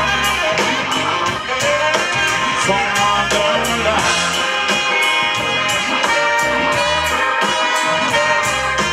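Live blues band playing an instrumental passage, with trumpet and saxophone over electric guitar, keyboard, bass and drums keeping a steady beat.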